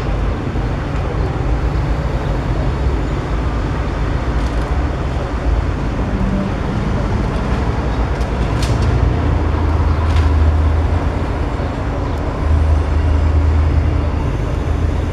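Vintage tram and its open-sided trailer car rolling past on street rails: a steady low rumble, with two sharp clicks partway through.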